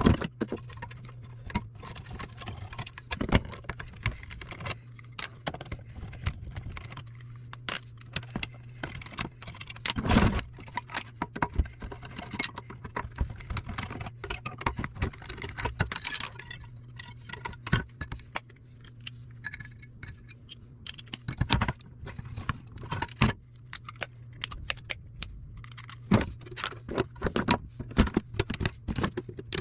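Food service scales being taken apart by hand: irregular clinks, taps and rattles of metal parts and tools being handled, over a steady low hum.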